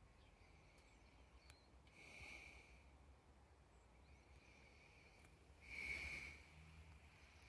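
Near silence, with faint hissing swells about every four seconds, the loudest about six seconds in, and a few faint ticks.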